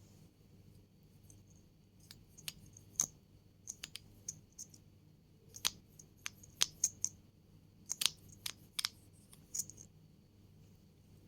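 Close-miked ASMR clicking: an irregular run of about twenty crisp, sharp clicks and taps, starting about two seconds in and stopping near the end.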